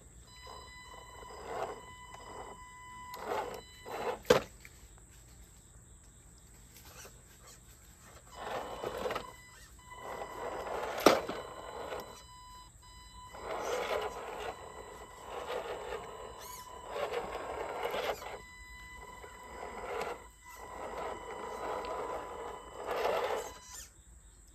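Electric motor and gearbox of an RC scale crawler truck whining in repeated bursts of throttle, each a second or two long, as it crawls through shallow creek water over rocks. Two sharp knocks stand out, about four seconds in and near the middle, the second the loudest sound.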